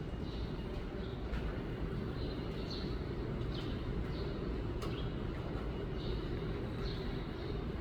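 Short, high chirps repeating about once a second, the calls of a juvenile white-rumped shama, over a steady low rumble.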